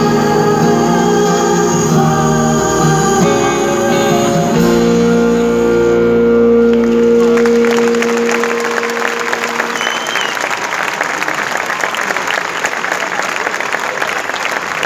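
A live band holds and lets ring the final chord of a song, which fades out; about halfway through, the audience breaks into applause that carries on.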